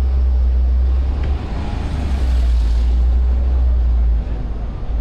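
City street traffic: a heavy low rumble with a vehicle passing, its hiss swelling and fading about two seconds in; the rumble drops away a little after four seconds.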